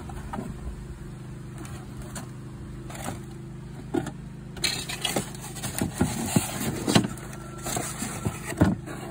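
A steady low hum runs throughout. From about four seconds in, a run of light knocks, clicks and rustling comes from eggs being gathered by hand.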